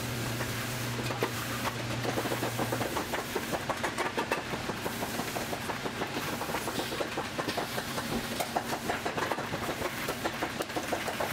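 A machine clattering rapidly and irregularly, with a steady low hum that cuts off about three seconds in.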